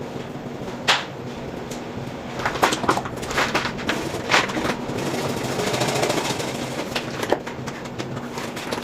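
Scattered sharp knocks and clicks of pipe, fittings and tools being handled, about half a dozen, over a steady low hum.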